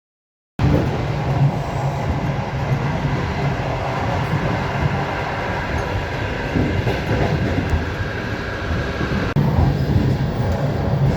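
Running noise of a Russian long-distance passenger train heard from inside the carriage: a steady rumble and rattle of the wheels on the rails. It starts abruptly about half a second in, and there is a brief break about nine seconds in.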